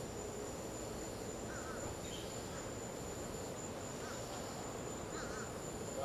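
Crickets trilling steadily in a high, unbroken tone, with a few short bird chirps about a second and a half, four and five seconds in, over a steady evening ambience.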